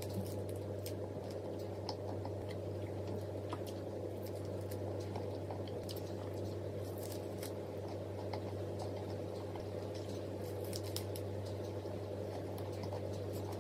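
Soft eating sounds and small utensil clicks scattered over a steady low hum.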